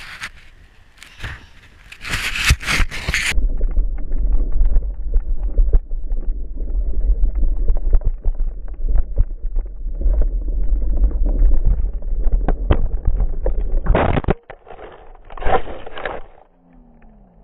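Mountain-bike crash on a dirt trail, heard on an action camera's microphone. For a few seconds there is sharp scraping and knocking, then slowed-down slow-motion audio takes over: wind and tyre noise become a deep, dense rumble with many scattered clicks. Two loud, muffled crashes come near the end.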